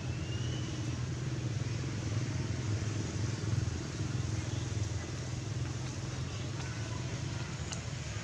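A motor engine running steadily with a low hum.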